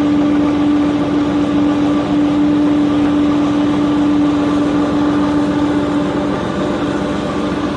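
Boat engine running steadily on board: a constant droning hum with one strong steady tone over an even rushing noise, the tone weakening about six seconds in.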